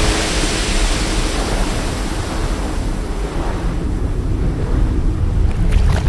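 Rushing, surging water sound effect over a deep rumble. The high hiss thins out about halfway through while the low rumble carries on.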